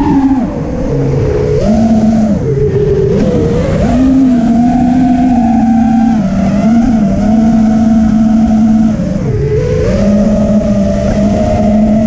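FPV quadcopter's brushless motors whining in flight, the pitch stepping and gliding up and down with throttle: it drops soon after the start, rises and dips again around two to three seconds in, holds steady, then dips and climbs back near nine to ten seconds in.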